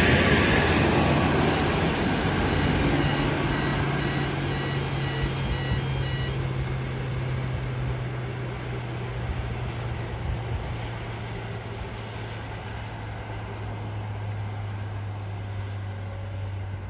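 Endeavour diesel railcar set passing close with loud wheel-on-rail noise, then its diesel engines droning steadily as it runs away down the line. The sound fades gradually throughout.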